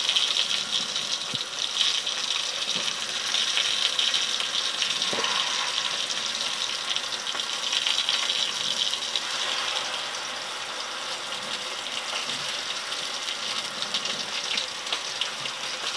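Dove breasts searing in hot oil in a small frying pan with chopped garlic and red pepper: a steady sizzle with fine crackling, easing slightly in the second half.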